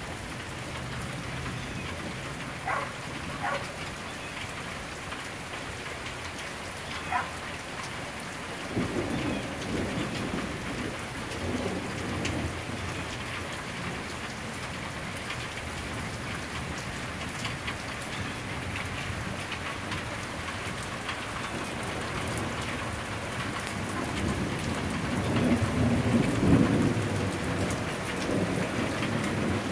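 Heavy rain falling steadily on flooded ground and standing water during a flash flood. Low rumbling swells rise around ten seconds in and, louder, near the end.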